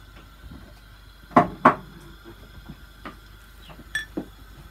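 A metal spoon clinking against a tin or dish: two sharp clinks in quick succession, followed by a few lighter taps.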